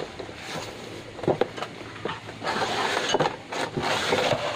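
Clear plastic blister tray and cardboard packaging being handled and slid out of a box: irregular crinkling with sharp plastic clicks and knocks, the loudest about a second in and again around three seconds in.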